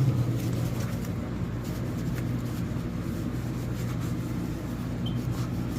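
A cloth wiping down a surface in faint rubbing strokes, over a steady low hum.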